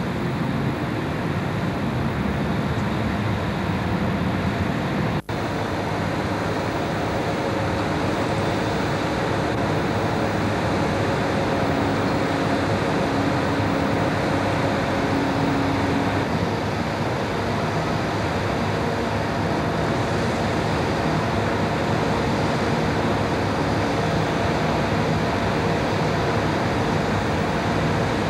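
Steady rush of industrial site noise and distant heavy machinery running, with a faint steady hum that comes in around the middle. The sound drops out for an instant about five seconds in.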